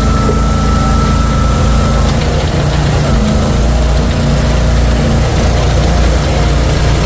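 A wood splitter's engine running steadily at a constant speed, with a faint steady whine over the first two seconds.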